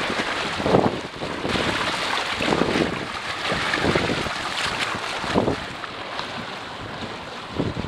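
Water rushing and splashing along the hull of a small Mudhen sailboat under way in a fresh breeze, rising and falling in irregular surges, with wind buffeting the microphone.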